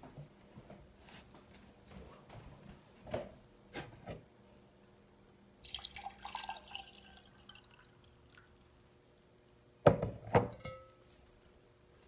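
Water poured from a glass jug into a ribbed drinking glass for about a second and a half, a little over halfway in, after a few soft knocks of glass on a wooden counter. Near the end come two sharp knocks, the loudest sounds, as glassware is set down on the wooden counter, with a brief ring.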